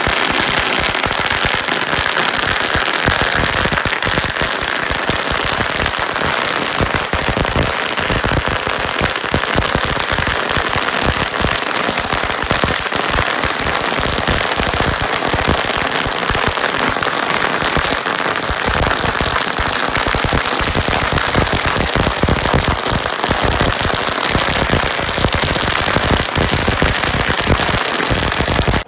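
Strings of firecrackers going off on the ground in a continuous, rapid crackle of bangs that never lets up.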